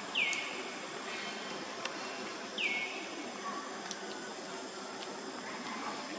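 Two short, high-pitched animal calls, each sliding quickly down in pitch, about two and a half seconds apart, over a steady outdoor hiss.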